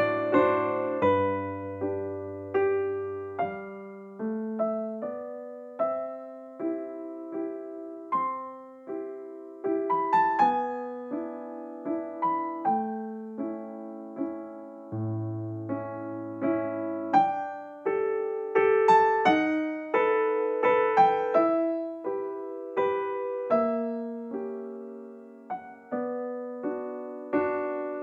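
Background music: a gentle keyboard melody on piano or electric piano, with notes struck one or two a second and each dying away.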